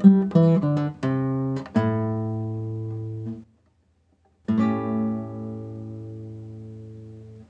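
Acoustic guitar music: a quick run of plucked notes, then a chord left to ring and fade, a second of silence, and a final chord that rings out slowly.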